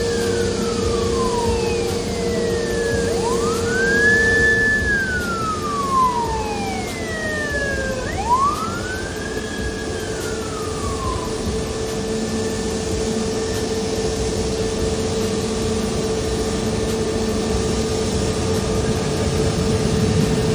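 Police siren wailing, three slow rise-and-fall sweeps that stop about eleven seconds in. Beneath it runs a steady mechanical hum and rumble.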